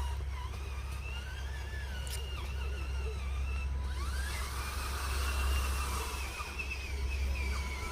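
Radio-controlled model bulldozer's electric drive running, a thin motor-and-gear whine that rises and falls in pitch as the speed changes, over a steady low rumble.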